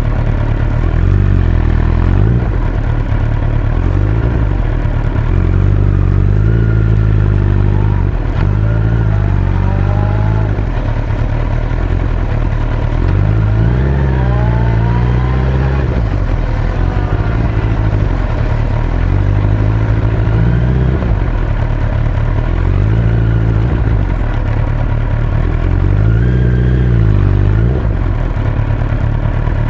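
Suzuki Hayabusa motorcycle's inline-four engine under way, its note rising and falling several times as the rider accelerates and eases off, over a steady rushing noise.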